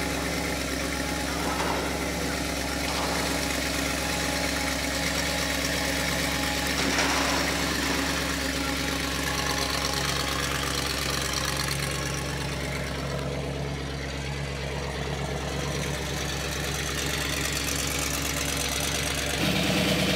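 An engine idling steadily, a constant low hum whose note shifts slightly near the end.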